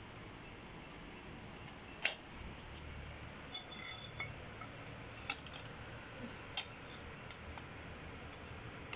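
Metal tubes of a butterfly chair frame clinking and knocking against each other and the floor as they are handled and fitted together. A few sharp metallic clinks, the loudest about two seconds in, then a short ringing cluster near four seconds, and lighter ticks later.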